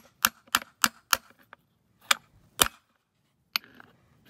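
Hammer tapping on a steel bearing and race driver, metal on metal, to drive a new front axle knuckle seal evenly into a Kubota L3830's axle. It goes as a run of quick light taps about three a second, then three slower, harder strikes spaced out.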